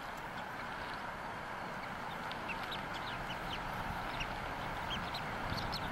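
Bald eagle calls: short, high, thin chirps that start about two seconds in and come more and more often toward the end, over a steady background hiss.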